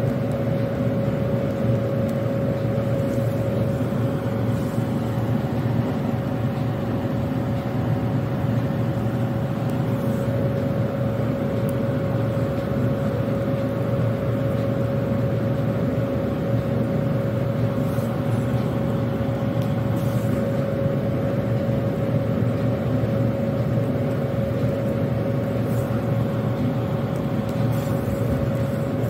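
A steady machine drone with a constant hum, unchanging in pitch and level.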